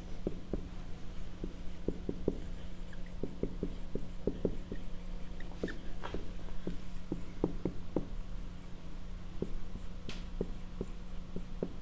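Dry-erase marker writing on a whiteboard: a long run of short squeaks and taps as the tip strokes out words, over a steady low hum.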